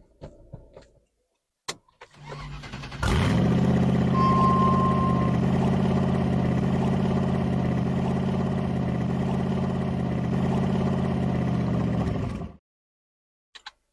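Land Rover engine cranking briefly, catching and running at a steady idle, with a short steady beep just after it starts. The engine is switched off and cuts out suddenly near the end.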